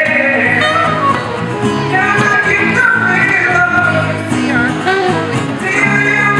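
Live band music: a male voice singing over strummed acoustic guitar and electric bass, with a soprano saxophone playing.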